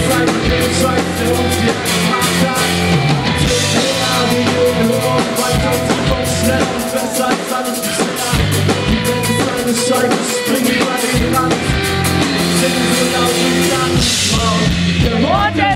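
Rock band playing live: drum kit and electric guitar through a PA system, with a voice singing near the end.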